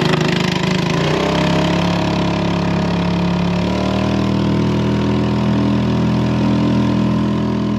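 An engine running steadily, starting abruptly and stepping up in pitch about a second in and again a little before the four-second mark.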